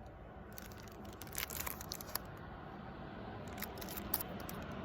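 Product packaging being handled and opened by hand: irregular crinkling, rustling and small sharp clicks.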